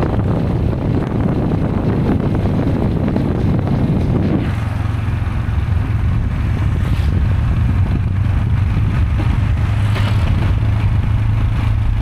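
Riding in a motor vehicle: a steady low engine hum with road and wind noise, rougher for the first four seconds or so, then a little smoother.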